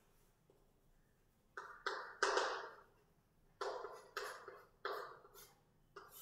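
Chalk scratching and tapping on a blackboard as words are written: about seven short strokes, the longest and loudest about two seconds in, then a quicker run of strokes in the second half.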